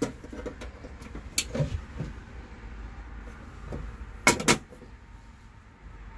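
Push latch and metal door of an electrical breaker panel clicking as it is worked by hand, with soft clicks early and a sharp double click about four seconds in. A low steady hum runs underneath.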